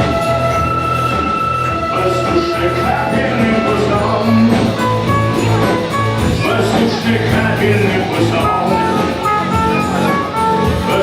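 Live rock band playing a passage led by a guitar melody of held and stepping notes over bass and drums.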